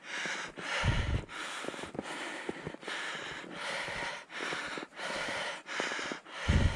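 A hiker breathing hard and fast, about three breaths every two seconds, from the exertion of climbing a steep, snowy slope.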